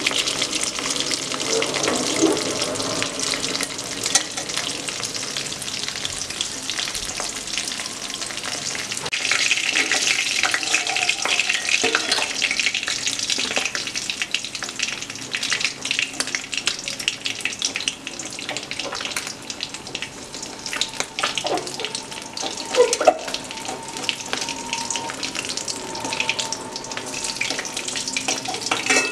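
Pieces of hilsa fish shallow-frying in hot oil in a wok: a steady sizzle full of fine crackling spatters, with a sharp knock about two-thirds of the way through.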